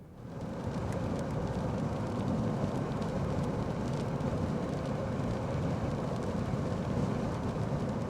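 Steady loud road and wind noise of a car driving, heard from inside the cabin, starting just after the beginning, with faint scattered ticks.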